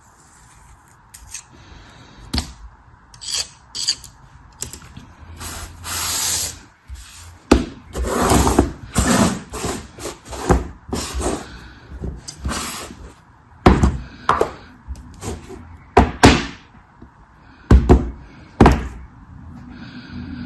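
Packaging being handled and unwrapped by hand: repeated bursts of rustling and crinkling, broken by sharp knocks and clicks.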